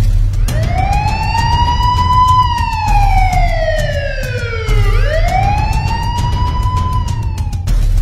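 Police siren wailing. It rises, falls slowly, then rises again and fades near the end, over background music with a low pulsing beat.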